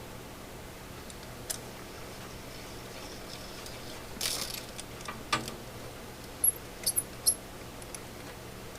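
Scattered sharp metallic clicks and a brief rasping scrape about four seconds in, from a Stihl Farm Boss chainsaw chain being worked with a bar-mounted Timberline sharpener. A few short high clicks come close together near the end.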